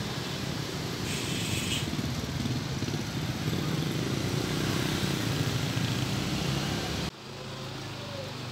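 Street traffic: a minivan and motorcycles drive past, engines running with a steady rumble. About seven seconds in the sound cuts abruptly to a quieter background.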